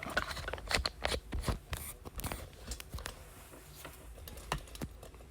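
Trading-card packaging being handled: a quick run of crinkling, tearing and clicking noises, thick in the first couple of seconds, then thinning to a few scattered clicks.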